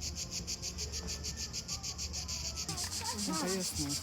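Cicadas buzzing in a loud, rapidly pulsing high chorus.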